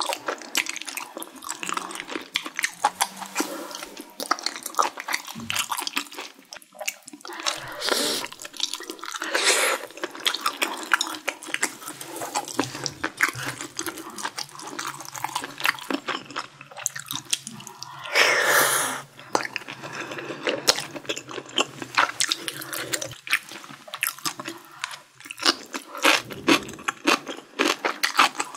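Close-miked eating of spicy stir-fried glass noodles and seafood: continual wet chewing and lip smacks, with three longer, louder airy slurps, the first two about eight and nine seconds in and the last near the middle.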